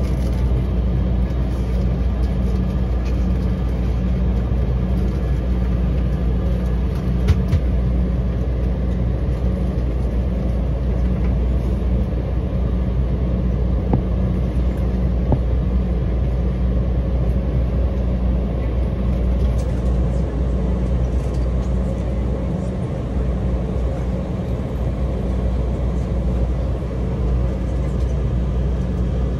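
Steady low rumble inside the cabin of an Embraer E195 jet taxiing slowly, its engines at idle, with a faint click about seven seconds in.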